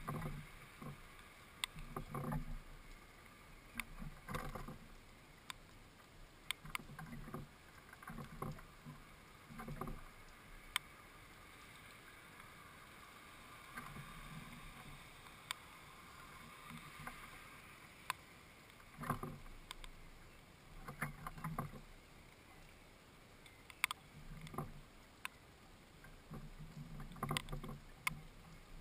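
A house sparrow pecking at seed and a fat ball inside a wooden feeder: irregular sharp beak taps and dull knocks on the wood, coming in scattered clusters.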